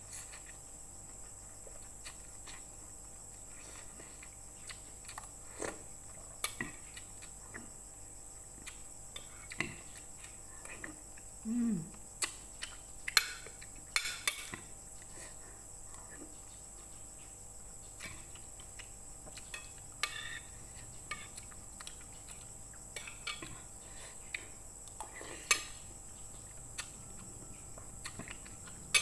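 Mukbang eating sounds: a metal spoon clinking and scraping on a ceramic plate of misua noodle soup, with soft slurping and chewing between. The clinks come irregularly, the sharpest three about 13, 14 and 25 seconds in.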